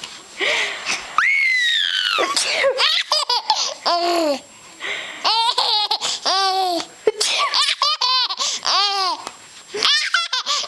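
Seven-month-old baby laughing hard in repeated bursts, each a run of quick high-pitched "ha" syllables, set off by her mother's fake sneezing. One longer falling squeal comes about a second in.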